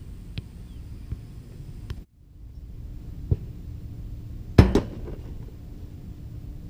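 Soccer ball kicked with a thump, then about a second later a loud, sharp impact with a quick second knock as the ball strikes the metal goal frame.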